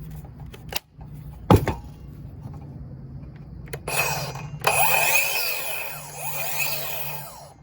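Cordless circular saw's motor triggered to spin the freshly fitted blade: it starts with a high whine, cuts out briefly, then runs about three seconds before winding down. A sharp knock comes about a second and a half in, before the motor starts.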